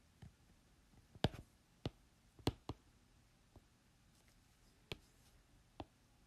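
Faint, sharp clicks of a pen tip tapping the writing surface during handwriting: about eight scattered ticks, the loudest about a second in and about two and a half seconds in.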